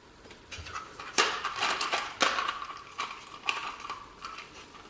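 Small steel lathe-apron parts clinking and tapping together as a key is handled and fitted on a shaft: a series of separate light metallic clicks with brief ringing.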